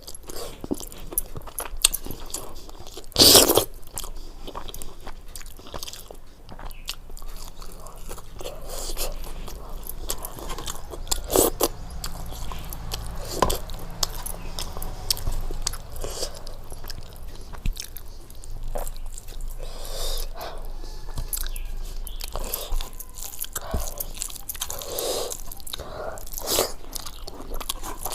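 A person eating close to the microphone: repeated bites and chewing of khichdi with fried sides such as palak pakoras and brinjal fry, with one loud bite about three seconds in.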